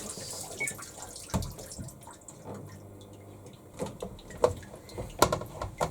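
Water settling and dripping inside a top-loading washing machine's tub just after the rinse is paused, with a few scattered small clicks and knocks.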